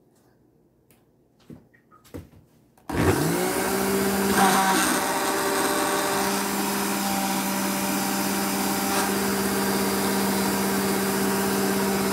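A countertop blender's motor switching on about three seconds in, spinning up quickly and running at a steady high speed as it purees kale and fruit into a smoothie; very noisy. A few faint clicks come before it starts.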